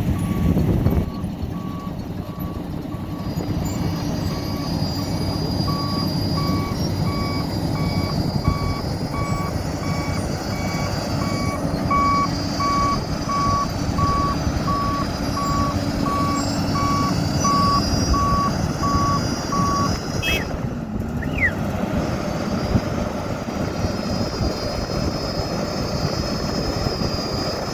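Diesel road-construction machinery running steadily with a reversing alarm beeping about one and a half times a second; the beeping stops about 20 seconds in while the engines run on.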